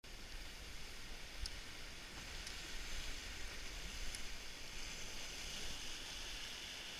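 Sea waves breaking and washing over shoreline rocks: a steady rushing hiss of surf, with a few faint ticks.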